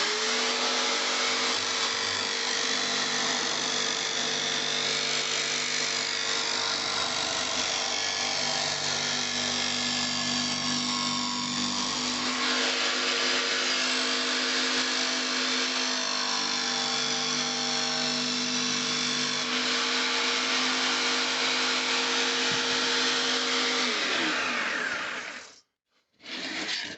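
Rockwell BladeRunner X2 tabletop jigsaw running at a steady speed as it cuts a board, the motor's even hum under the rasp of the blade in the wood. About 24 seconds in it is switched off, and it winds down with a falling pitch.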